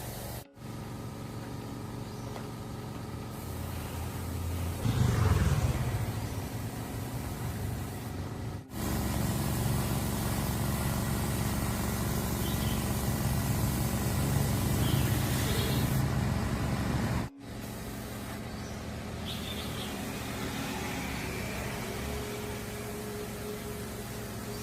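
Air compressor's electric motor running with a steady hum. The sound cuts off abruptly and resumes three times, and there is a louder surge about five seconds in; it runs louder between the second and third cuts.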